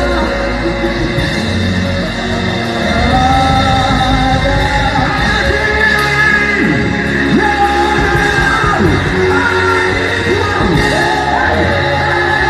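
Live worship music in a large hall: a man singing loudly into a handheld microphone over a band with a drum kit, with shouts and yells mixed in.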